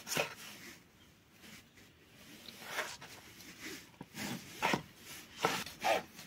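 Kitchen knife slicing a tomato on a plastic cutting board: several short cuts and knocks of the blade on the board, coming irregularly, with a lull for about the first two seconds after the first stroke and more strokes bunched toward the end.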